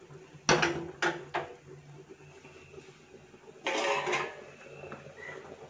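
Metal cookware clattering on a gas stove: three sharp clanks in the first second and a half, then a longer clatter and scrape about four seconds in as the lid of an aluminium pressure cooker is handled.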